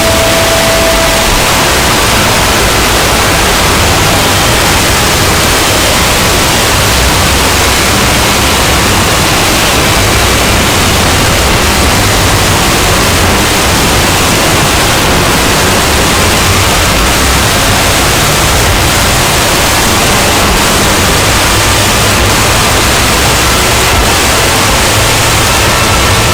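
Harsh, heavily distorted wall of noise at full loudness, steady, with no clear pitch or rhythm: a deliberately overdriven 'Loud.exe' earrape-style punishment sound effect.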